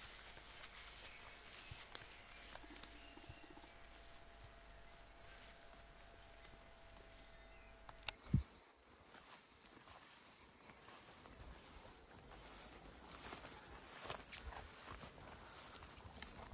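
Insects, crickets or bush-crickets, chirring faintly in a steady high-pitched trill. About eight seconds in there is a sharp click and a low thump.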